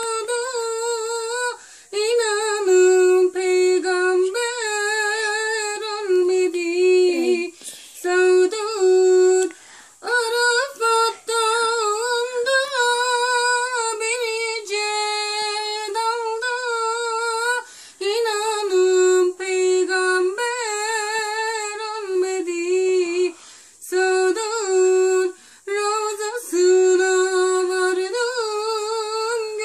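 A woman singing solo with no accompaniment, in long ornamented phrases whose pitch wavers and turns constantly, broken every few seconds by short pauses for breath.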